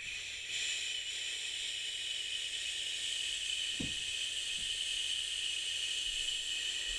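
A long drawn-out human "shhhh" shush voicing a cartoon octopus librarian, held as one unbroken steady hiss.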